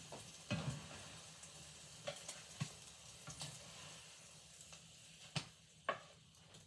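Butter sizzling faintly in a frying pan, with several light taps and scrapes of a metal spatula against the pan and a plate as pieces of French toast are lifted out.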